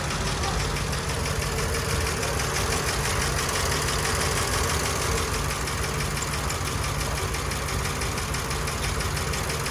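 Flathead V8 of a 1937 Ford pickup idling steadily, with an even beat.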